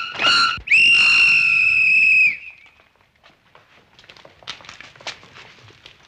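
A whistle blown shrilly: one last short toot, then a single long steady blast that stops a little over two seconds in. After it come faint scuffing footsteps on cobblestones.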